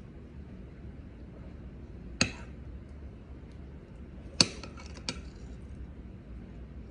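Metal spoon clinking against a glass serving bowl of curry, three sharp clinks, the second the loudest.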